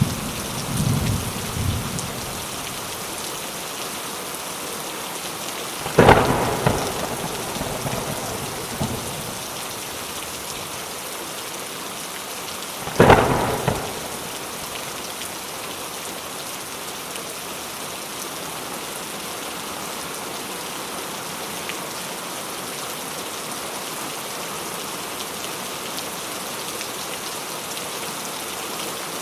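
Steady rain falling in a thunderstorm. Low thunder rumbles in the first couple of seconds, then two sharp thunderclaps come about six and thirteen seconds in, each rolling off over a second or two, and after that only the steady rain remains.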